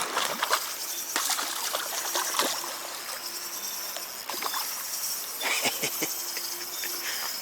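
Water trickling and lapping, with scattered small splashes and clicks.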